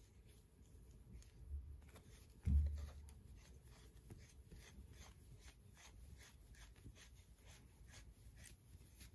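Steel left-hand 10 TPI acme thread being screwed by hand into its mating internal thread: a run of faint scratchy ticks of metal threads turning. A low thump about two and a half seconds in.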